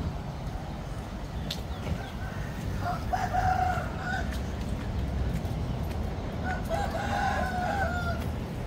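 Roosters crowing: two crows, one about three seconds in and a slightly longer one near the end, each lasting a second or more, over a steady low rumble.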